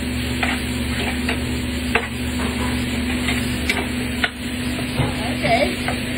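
Food being stirred in a pan with a utensil, with a few sharp clicks of the utensil against the pan, over a steady low hum.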